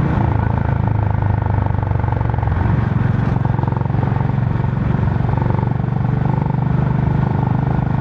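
Honda H'ness CB350's air-cooled single-cylinder engine running steadily through its stock exhaust while the motorcycle is ridden at an even pace.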